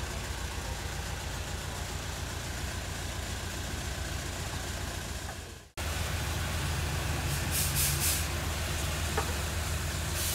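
Steady low engine hum that cuts out abruptly about halfway through and returns at once. After the break come a few short hisses, about two seconds in and again near the end.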